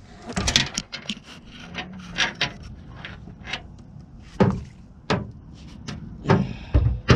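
Irregular knocks, thumps and rubbing from handling a landed channel catfish in a boat while a swallowed hook is worked out. The heaviest thumps come about four seconds in and twice near the end.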